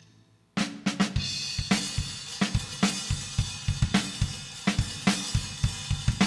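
Drum kit starting a steady beat about half a second in: bass drum, snare and cymbals struck in an even, driving rhythm.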